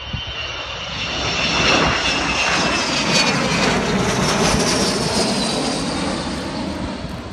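Avro Vulcan bomber's four Rolls-Royce Olympus turbojets in a low flypast. A loud rumble swells about a second in and stays strong for several seconds, with a high whine over it that falls in pitch as the aircraft passes, fading near the end.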